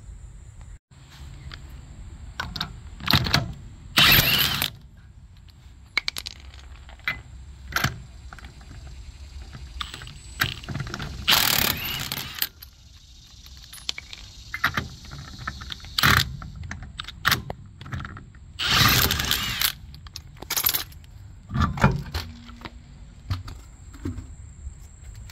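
Impact wrench run in short bursts of up to about a second, loosening wheel lug nuts, with scattered metallic clinks of nuts and tools in between.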